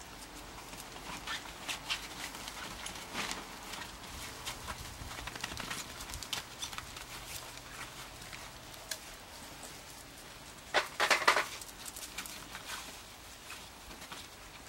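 Puppies' claws and paws pattering and scrabbling on brick paving as they play, a scatter of short taps throughout, with a louder quick run of clicks about eleven seconds in.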